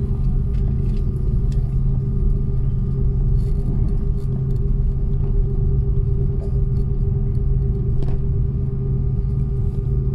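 Airliner cabin noise: a steady deep rumble of engines and airflow, with a constant hum over it.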